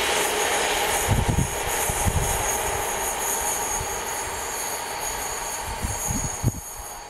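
A passenger train rolling away along the track, its wheel-on-rail noise steadily fading. A thin high squeal runs through it, and there are a few short low thumps.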